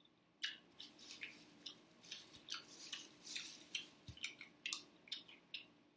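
Close-miked mouth sounds of a person chewing seafood: an irregular run of short, wet smacks and clicks.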